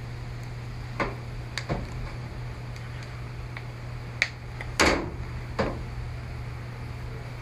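Hard plastic and small tools handled while prying at a tablet's back cover: about half a dozen sharp clicks and taps, the loudest and longest about five seconds in, over a steady low hum.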